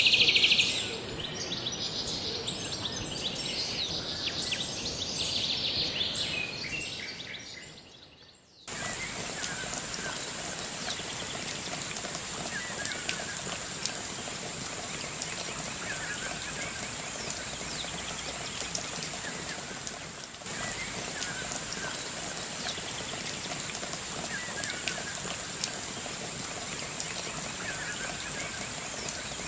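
Outdoor paddy-field ambience. At first a high insect shrill with birds calling fades away. Then, after an abrupt change about 9 seconds in, a steady rain patter sets in, with a thin high insect whine and a short bird chirp about every two seconds.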